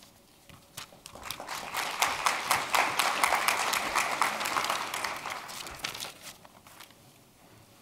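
Audience applauding. The clapping builds up about a second in and dies away about six seconds in.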